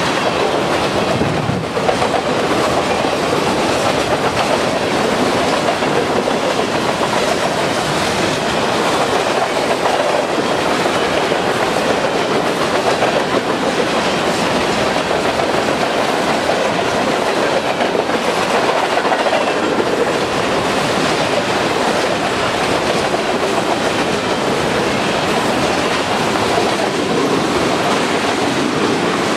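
CN freight train's cars rolling past close by, a steady, unbroken noise of steel wheels running on the rails.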